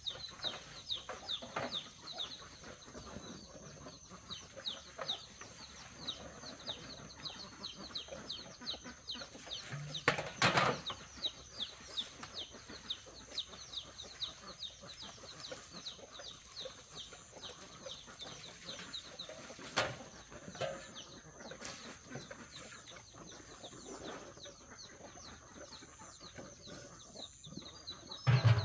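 Chickens peeping and clucking: a rapid run of short, high, falling peeps for the first half, thinning out later, with a louder cluck about ten seconds in, over a steady high-pitched whine.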